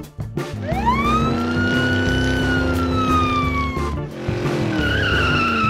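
A siren sound effect: one long wail that rises quickly and then falls slowly, followed by a shorter wavering tone near the end, over background music with a steady beat.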